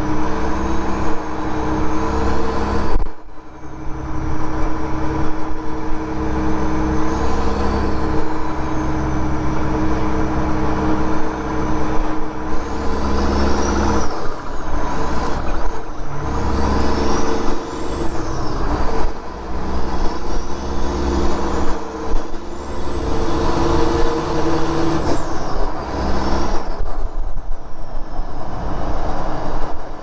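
Freightliner semi's Detroit Diesel engine pulling through the gears of a 13-speed manual transmission, heard from inside the cab. The engine drone drops out briefly several times at the shifts and picks back up at a new pitch, with a turbocharger whistle rising and falling over it.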